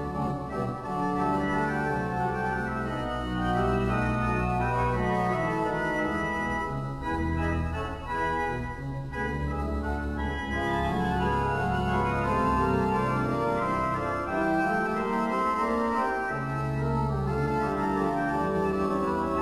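Pipe organ playing full sustained chords over a deep pedal bass, the harmony changing every second or two.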